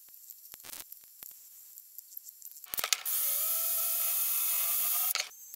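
Cordless DeWalt drill running for about two seconds, its bit working against a forged carbon fibre brake lever, with a slight rise in pitch as it spins up and a sudden stop. Before it come a few light clicks and scrapes from hand tools on the part.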